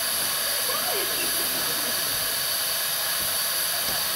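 Narrow-gauge saddle tank steam locomotive standing and blowing off steam, a steady hiss.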